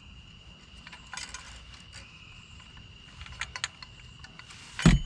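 Light metallic clicks and rattles of wire and small metal parts being handled as a cord is worked out through a scrap cast housing, with one loud knock near the end.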